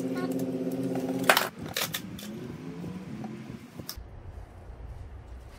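A steady low hum cuts off about a second in. It is followed by a few scattered clicks and knocks of small metal and plastic parts being handled as a resistor board is lifted out of an X-ray tube housing.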